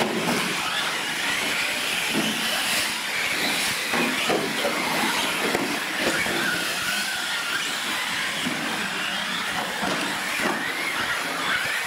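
Several radio-controlled trucks racing on a dirt track: a motor whine that rises and falls with the throttle, over a steady hiss, with a few short knocks.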